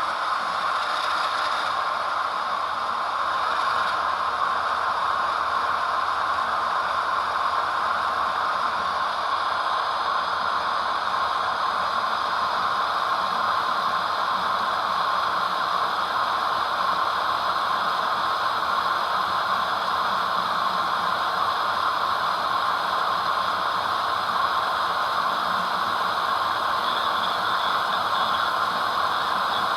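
Sound decoder of an HO-scale Athearn Genesis ES44DC model locomotive, heard through its small onboard speaker, playing a diesel with the dynamic brakes switched on: a steady hiss of the dynamic-brake blowers over the engine.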